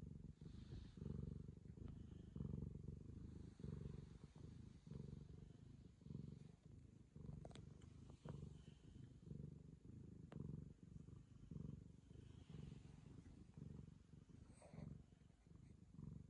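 Long-haired black cat purring softly and steadily while its chin is rubbed, the purr swelling and easing about once a second with its breathing.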